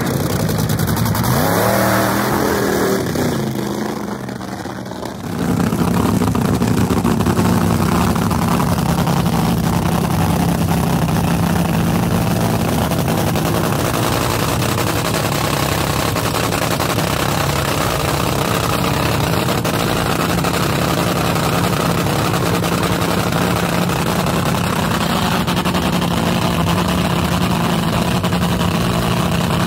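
Top fuel dragster's supercharged nitro V8 engine. For the first few seconds it is revved, its pitch sweeping up and down. After a cut it runs at a steady, loud idle for the rest.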